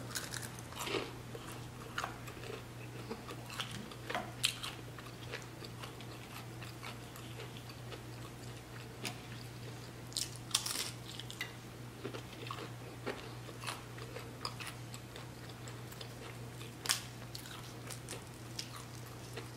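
Close-miked biting and chewing of chicken samosa pastry: scattered crisp crunches and mouth sounds, with a louder crunch about halfway through and another near the end. A steady low hum runs underneath.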